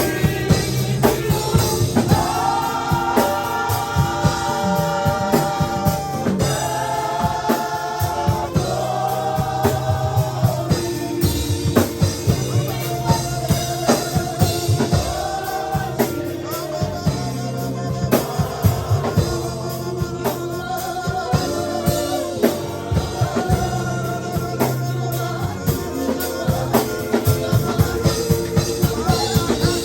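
Live gospel worship music: held sung notes over a band with a drum kit keeping a steady beat.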